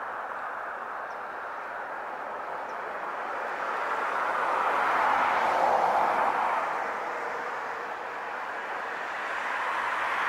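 Road traffic going by: a steady hiss of passing vehicles, with one swelling louder and fading about halfway through and another building near the end.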